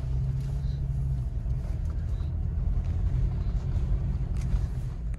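A motor vehicle running: a steady low rumble with a constant engine hum.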